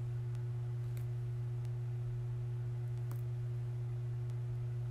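A steady low hum with a fainter, higher steady tone above it, and a few faint ticks.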